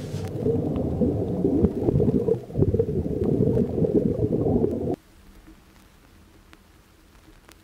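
Underwater scuba regulator exhaust bubbles: low, irregular bubbling and rushing heard through the water. It cuts off suddenly about five seconds in, leaving a faint hiss.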